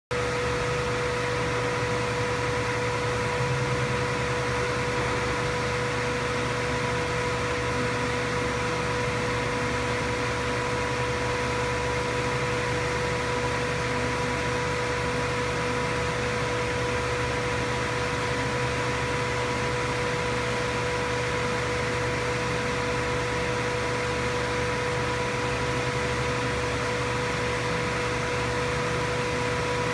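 Steady machine hum with a constant high whine over a hiss, unchanging throughout, like a fan or other running shop equipment.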